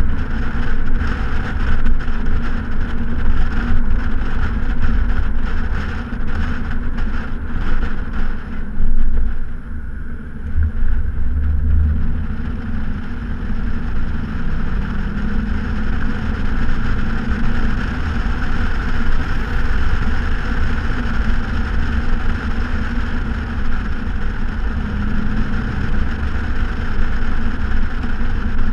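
Straight-piped exhaust of a 2014 Ford Mustang GT's 5.0-litre V8 while cruising, a steady low drone that briefly gets louder about nine seconds in. Wind buffets the microphone through the first eight seconds or so.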